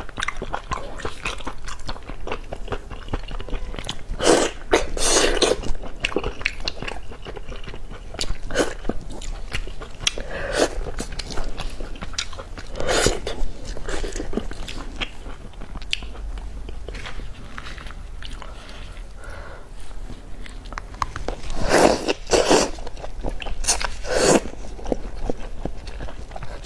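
Close-up eating sounds: a person chewing and biting fish, with irregular small mouth clicks and a few louder bursts about five seconds in, around halfway, and twice near the end.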